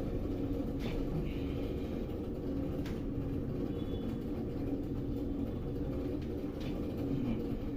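Steady low rumble and hum, with a few faint clicks.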